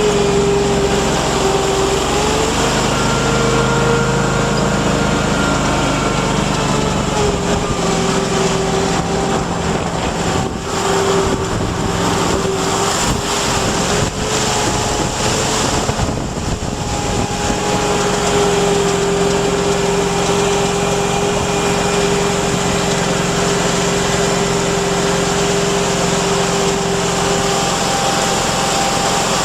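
Mudd-Ox 8x8 amphibious ATV's engine running steadily under load as the machine crawls along on Adair tracks, heard from on board. The engine note shifts a little in pitch and turns rougher for a few seconds midway.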